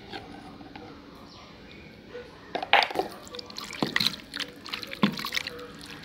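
Hand mixing raw chicken pieces with turmeric powder in a bowl: wet, irregular squelches and sticky clicks that start about two and a half seconds in, after a quieter stretch.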